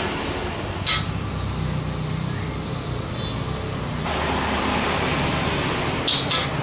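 A metal spoon stirring chunky sambal in a stainless steel wok, with sharp clinks of spoon on wok about a second in and twice close together near the end, over a steady low rumble.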